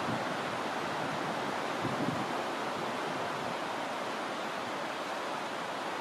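Steady rushing of wind through pine trees, with a low gust buffeting the microphone about two seconds in.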